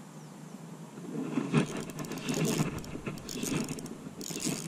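Spinning fishing reel being wound, its gears giving a ratcheting rattle that starts about a second in and comes in uneven spurts.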